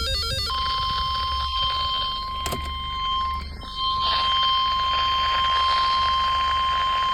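NOAA Weather Radio warning alarm tone: a single steady high tone of about 1050 Hz starting about half a second in, heard through a radio receiver with static hiss that grows stronger a few seconds in.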